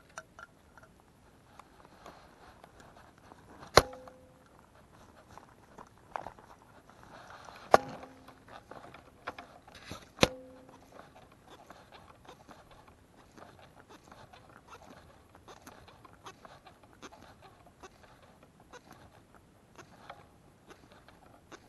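Fishing line being retrieved by hand along a rod, with faint ticks and rubbing. Three sharp knocks with a short hollow ring stand out, about a third, two thirds and halfway through.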